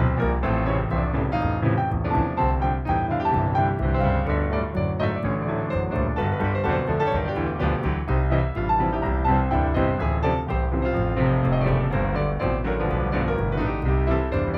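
Background music: a piano-led instrumental track with a steady bass line.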